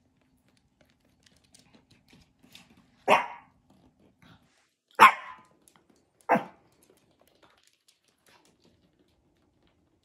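Pomeranian barking three times, short single barks a second or two apart, the middle one the loudest, with faint light clicks between them.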